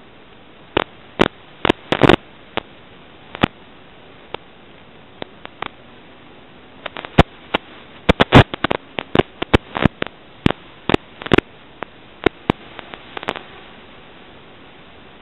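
Steady hiss of an analog FPV video link's audio channel, broken by sharp static clicks and pops. The pops are scattered at first, come thick and fast in the middle and die away near the end.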